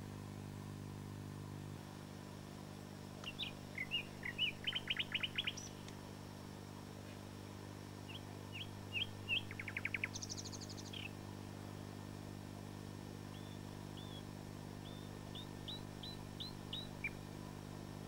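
Common nightingale singing in three separate phrases of clear short notes, fast rattling trills and runs of rising whistles, with pauses between them. A steady low hum runs underneath.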